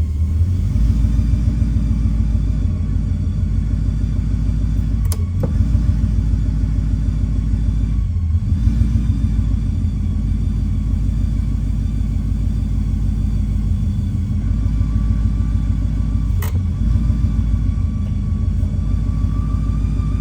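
Ford Mustang Boss 302's 5.0-litre V8 running with an even firing pulse and a faint steady high whistle over it, a whistle the owner traces to the driver's side of the bellhousing and suspects is the clutch or flywheel. Two short sharp clicks, about five seconds in and near the last few seconds.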